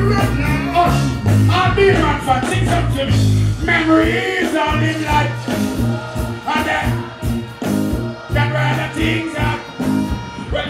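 Live dancehall music through a stage sound system: a heavy bass line and drums, with a vocalist performing on the microphone over them.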